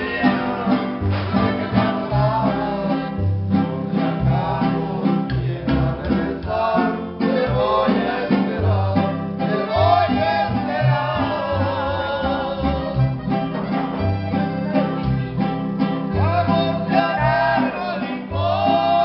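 Live norteño-style music from a button accordion and strummed guitars with a steady bass line, and a voice singing over it from partway in.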